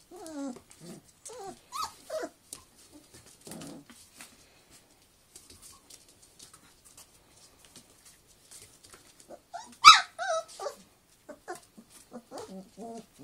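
Four-week-old Samoyed puppies calling in a string of short, high whines and yips, with a quiet spell in the middle and the loudest, sharpest cry about ten seconds in.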